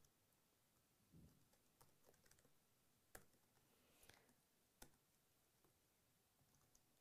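Near silence with a few faint, scattered clicks of computer keyboard keys and a mouse.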